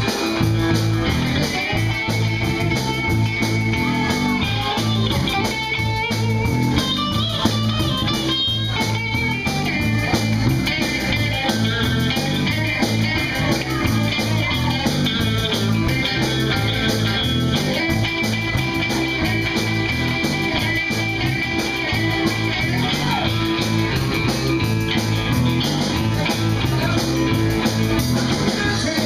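Live blues band playing an instrumental passage: a Stratocaster-style electric guitar playing lead over electric bass and a Ludwig drum kit keeping a steady beat.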